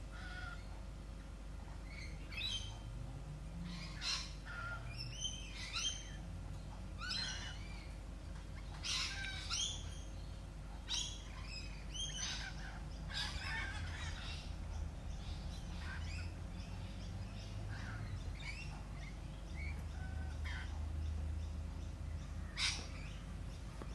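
Birds chirping and squawking: many short calls at irregular intervals, some sweeping up or down in pitch, over a low steady hum. One sharp call near the end is the loudest.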